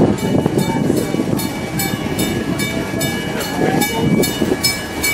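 1870s steam locomotive chuffing at a slow, even pace, about three to four exhaust beats a second, over the rumble of the train's cars rolling on the track. A steady high-pitched tone sounds underneath.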